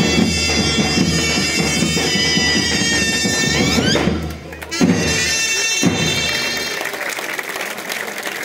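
Zurnas, shrill double-reed folk shawms, play a Greek folk dance tune over a steady daouli drum beat. A little before halfway the melody slides upward and drops out briefly, then the playing starts up again.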